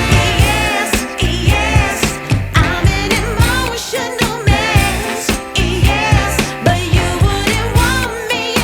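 Background pop song with a sung vocal over a steady beat.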